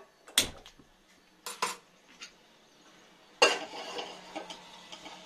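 A few sharp metallic knocks, then a metal kadai set down hard on the gas stove's cast-iron grate with a clang that rings on for about a second.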